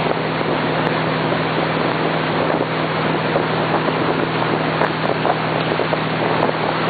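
Tow boat's engine running with a steady drone at towing speed, under rushing water and wind buffeting the microphone.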